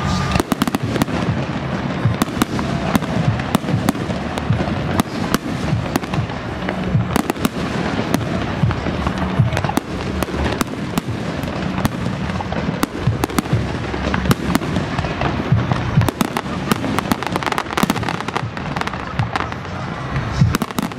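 Festival fireworks display: a continuous, dense run of bangs and crackles with deep booms underneath, with music playing beneath them.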